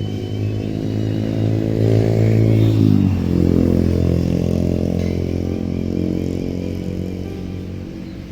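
An engine passes close by, growing louder and then fading. Its pitch drops sharply as it goes past, just before three seconds in.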